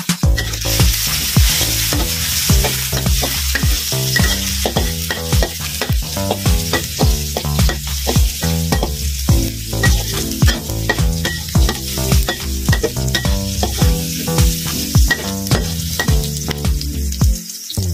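Chilies and garlic sizzling in hot oil in a stainless steel wok, stirred with a metal spatula that scrapes and taps against the wok over and over.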